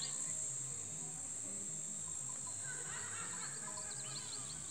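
Steady high-pitched drone of an insect chorus, crickets, with a bird chirping in a quick series about three seconds in and a faint low hum underneath.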